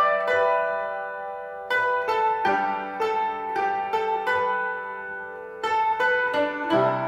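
Background music: a light tune of plucked string notes, each ringing out and fading, with a lull about half a second in before the plucking picks up again near two seconds.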